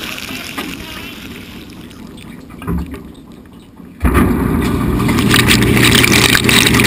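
Dishwasher wash cycle. After a quieter, fading stretch with one low thump, the pump motor cuts in suddenly about four seconds in: a loud, steady hum with rushing, spraying water.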